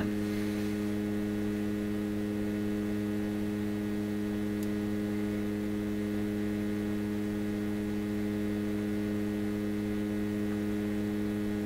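Steady electrical mains hum from the powered tube radio and bench test gear. It is a constant buzz with a stack of evenly spaced overtones, unchanging in level.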